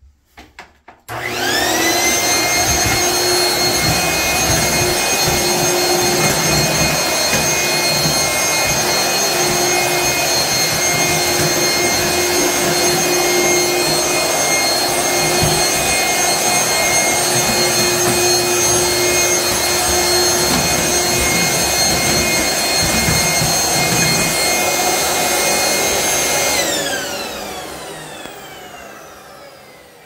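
Dirt Devil bagless stick vacuum cleaner switched on about a second in, its motor whine climbing quickly to a steady high pitch over the rush of air. It runs steadily, then is switched off near the end, the whine falling away as the motor winds down.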